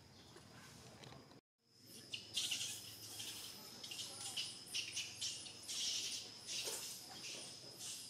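Insects calling: a steady high-pitched drone with uneven rasping pulses over it, starting after a brief silence about a second and a half in.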